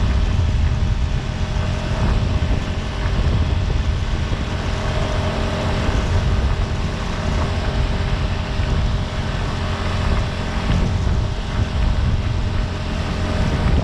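Outboard motor of a small fishing boat running steadily at speed, with water rushing past the hull and wind rumbling on the microphone.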